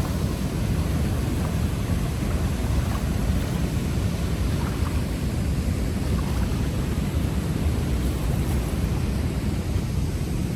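Steady low roar of a swollen river in flood, rushing water running without a break.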